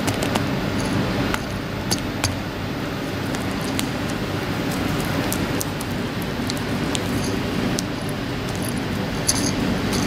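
Plastic bags of sawdust and a glass spawn bottle being handled, with scattered small clicks and clinks through a steady low background hum.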